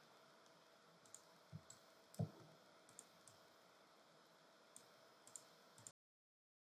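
Faint, scattered clicking from a computer mouse, about eight clicks, the loudest about two seconds in. The sound cuts off to dead silence about six seconds in.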